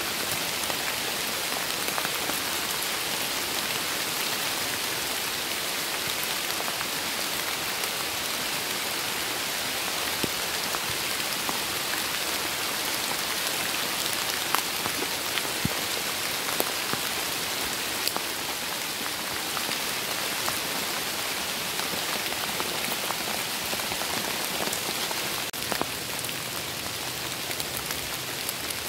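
Steady rain falling through the trees onto fallen leaves, with many scattered, sharper drop ticks.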